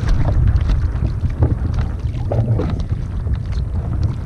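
Wind rumbling on the microphone, with faint scattered light knocks and clicks over it.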